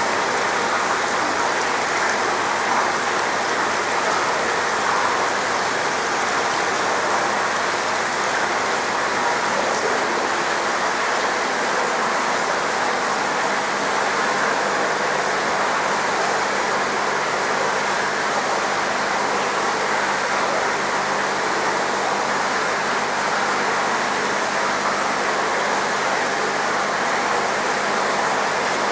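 Steady rush of moving water in a koi holding tank, from water splashing or bubbling in from the tank's pump and aeration, with a faint low hum underneath.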